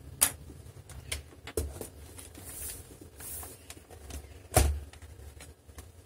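Acer TravelMate 4230 laptop being handled: shut and turned over, giving a few light plastic knocks and a brief rustle, then a louder knock with a thump about four and a half seconds in as it is set down.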